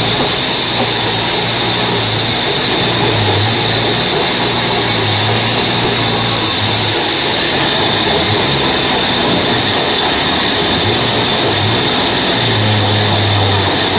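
A large vertical band saw running steadily as a teak log is fed through its blade: a continuous loud machine noise with a low hum that comes and goes.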